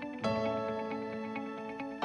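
Background music: a calm instrumental with sustained ringing notes and a new chord struck about a quarter second in.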